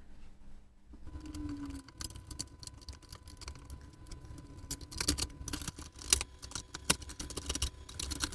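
Metal case parts of a bench multimeter being handled and fitted back together: a run of light clicks, taps and small rattles, busiest in the second half.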